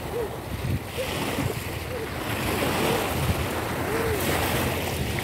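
Beach surf washing steadily, with wind buffeting the microphone.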